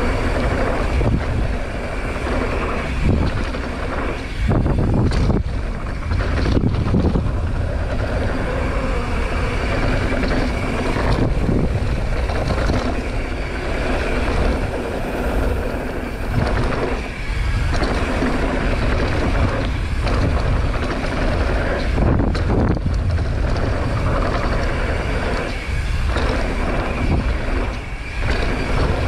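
Mountain bike riding down a dirt jump trail, heard on a GoPro action camera: steady wind rush on the microphone with tyre rumble, the level dipping briefly every few seconds.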